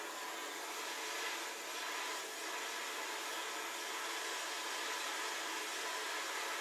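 Hand-held gas torch burning with a steady hiss while its flame heats a copper pipe joint for soldering.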